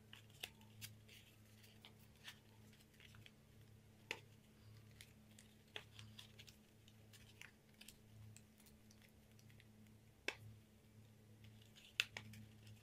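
Paper crinkling and clicking as hands fold and press a paper band around a folded paper box: irregular small crackles, with two sharper snaps about 10 and 12 seconds in, over a faint steady low hum.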